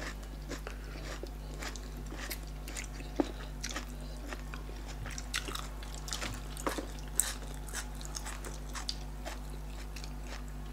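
Close-miked mukbang eating: scattered soft clicks, smacks and wet squishes of chewing and of fingers picking through tilapia in pepper soup with fufu, over a steady low hum.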